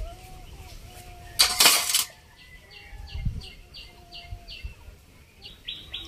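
Small birds chirping, with a run of short high chirps at about four a second in the middle. A brief loud rustling noise comes about a second and a half in.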